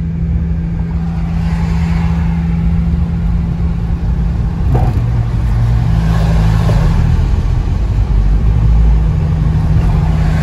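Cabin noise of a Nissan 350Z's 3.5-litre V6 cruising at about 46 mph: a steady engine drone under heavy low road and tyre rumble on a wet, snowy highway. There is one brief bump about five seconds in.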